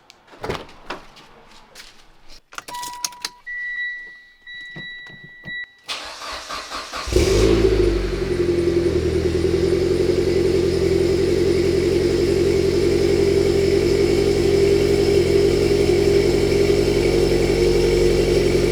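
Mitsubishi Lancer Evolution X being started: a few clicks, electronic dashboard chime beeps, then the starter cranks and the turbocharged 2.0-litre four-cylinder catches about seven seconds in and settles into a steady idle.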